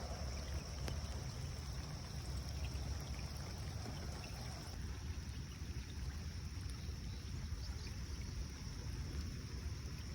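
Steady rain falling: an even, continuous hiss with a low rumble beneath it.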